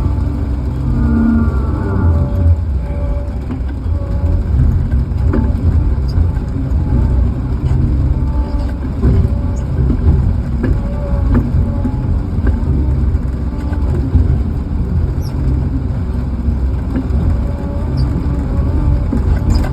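A heavy equipment engine running steadily with a deep low rumble, with a few sharp knocks scattered through.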